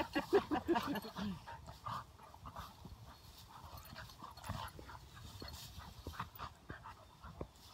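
An English springer spaniel and an Aussiedoodle play-wrestling in tall dry grass: scattered soft rustling and scuffling, with small dog vocal sounds.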